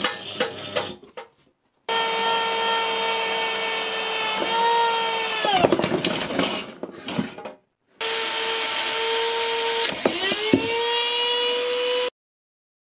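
High-speed rotary multitool with a flexible shaft running a polishing pad on an aluminium wheel hub: a steady high whine that sags in pitch whenever the pad is pressed on, then picks back up. It cuts off and restarts abruptly a few times.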